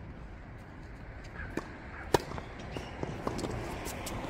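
Tennis rally on a hard court: one sharp pop of a racket striking the ball about two seconds in, with a few fainter knocks around it.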